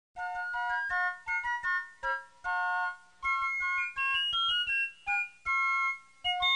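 Background music: a light keyboard melody of short, separate notes.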